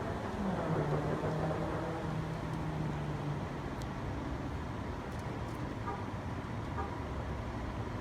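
A road vehicle going by, its low engine hum dropping in pitch about half a second in and dying away after about three seconds, over steady traffic noise.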